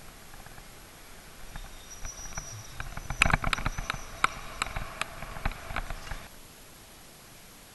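A bicycle and its camera mount clattering over streetcar tracks and rough pavement: an irregular run of sharp knocks and rattles, densest about three seconds in, stopping after about six seconds.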